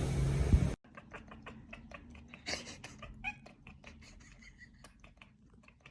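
A domestic cat caterwauling loudly; the cry cuts off abruptly about a second in. Then come quiet soft clicks and taps, with a couple of brief faint meows.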